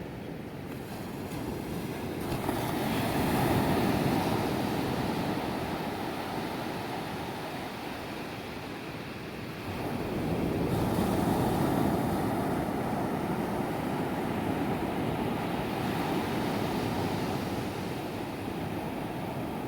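Ocean surf breaking and washing up a beach, swelling twice: about three seconds in and again about ten seconds in.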